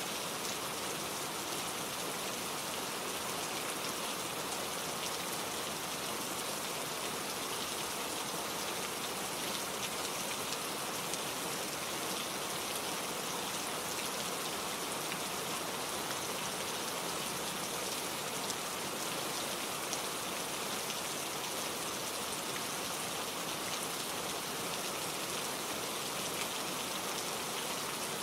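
Steady rain falling, an even patter of raindrops on a surface.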